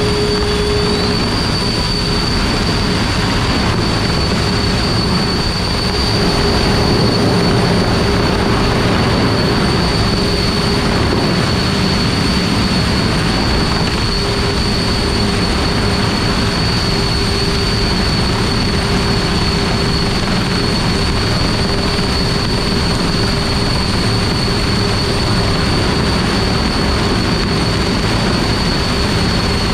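Homemade wind machine of several electric ducted fans running at full speed: a steady rush of air with a constant high whine.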